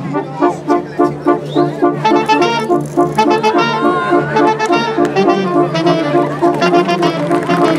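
Brass band of trombones, trumpets and tuba with drums playing a lively piece, short accented chords on a steady beat about twice a second under a melody line.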